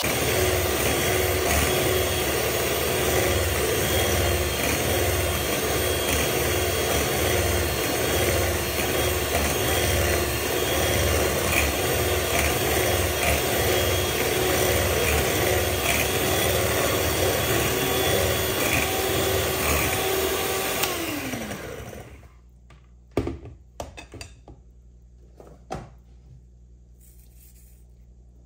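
Electric hand mixer running steadily, its twin wire beaters whisking runny cake batter in a bowl. About three-quarters of the way through, the motor winds down with a falling hum and stops, followed by a few light knocks.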